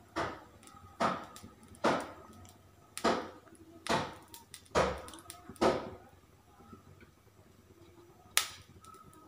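A spoon spreading butter over bread slices in a hot frying pan: a series of short scraping strokes, about one a second, then a pause and a single sharp click near the end.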